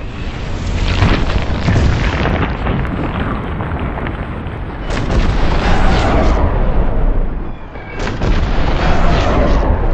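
Slowed-down gunfire: a dense, deep rumbling boom that swells sharply about five seconds in and again about eight seconds in, each swell sliding down in pitch.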